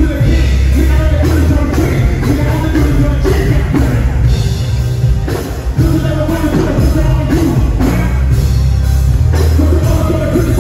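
Loud amplified music through a festival stage sound system during a sound check: a singing voice over a heavy bass beat.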